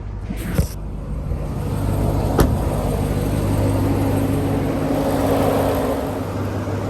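Ram TRX's supercharged 6.2-litre V8 running steadily as the truck drives, getting louder after about two seconds. There are two short clicks, the sharper one about two and a half seconds in.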